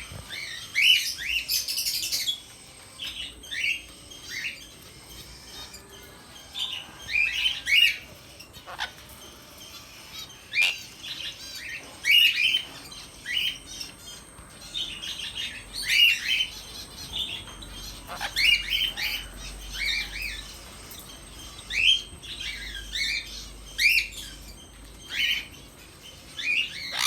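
Sun conure calling in repeated bursts of short, chirping, hooked notes, a cluster every two to four seconds, with a few sharp clicks in between.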